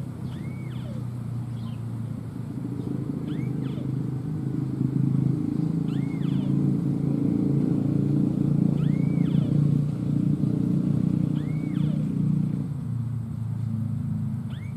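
A motor engine's low rumble swells through the middle and drops off sharply about two-thirds of the way through. Over it, a bird gives short arching whistled calls every two to three seconds, with thin higher chirps between.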